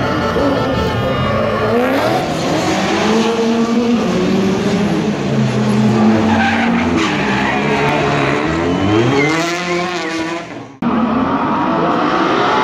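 Rally car engines revving hard, the pitch climbing and dropping again and again through gear changes. About eleven seconds in the sound cuts off abruptly, then another engine starts climbing in pitch.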